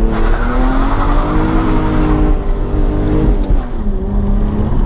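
Lexus IS200's straight-six engine held at high revs under hard acceleration, heard from inside the cabin. The revs drop about three seconds in and settle to a lower steady note near the end.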